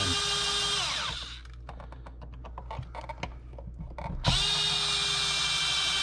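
Cordless drill-driver driving an outlet's mounting screws into the electrical box. Its motor whine winds down and stops about a second in. A few light clicks and taps follow, then the whine starts again about four seconds in.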